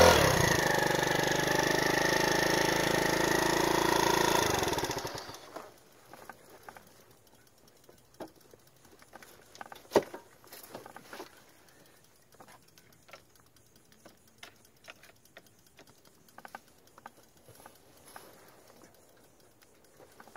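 Wolf W1 scooter's GY6 50cc four-stroke single-cylinder engine running steadily just after a brief rev, then cutting off about five seconds in and dying away over about a second. After that, only scattered light clicks and taps, with one sharper knock about ten seconds in.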